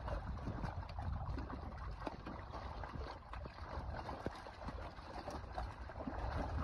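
A crowd of live carp thrashing in a net in shallow water, with continual splashing and sloshing broken by many quick slaps of tails and bodies, over a low rumble.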